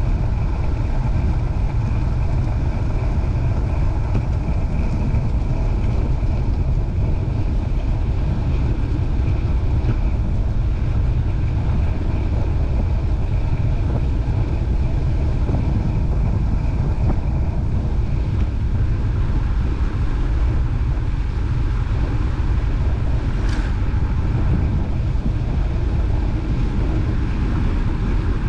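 Wind buffeting the microphone while moving into a headwind, a steady loud low rumble, with a faint steady whine above it and one short click about twenty-three seconds in.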